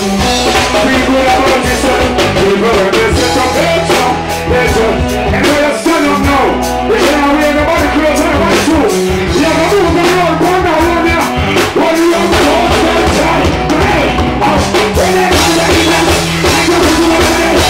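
Live reggae band playing loudly, with a male singer's voice over drum kit, bass and electric guitar.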